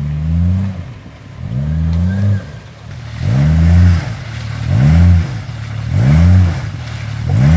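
Jeep Cherokee XJ's engine revving up and dropping back again and again, about once a second, as it is rocked while stuck in a mud hole.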